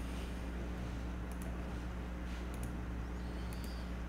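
Steady low electrical hum of the recording background, with a few faint computer-mouse clicks, some in quick pairs, as menu items are chosen.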